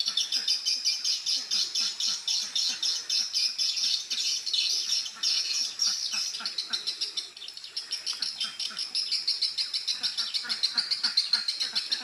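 Swiftlet call sound played through the rooftop speakers of a swiftlet house, a fast, rhythmic chirping twitter repeating several times a second. It is a lure call, meant to draw swiftlets in to roost and nest.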